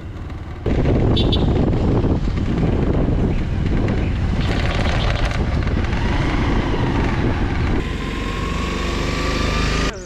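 Motorcycle on the move: engine running under heavy wind noise on the microphone, starting suddenly about a second in. Near the end a thin tone rises slowly as the bike picks up speed.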